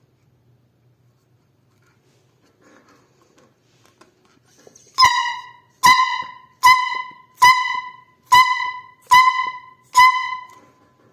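Homemade horn sounded seven times in short, evenly spaced honks, each one high note that starts sharply and fades out within about a second.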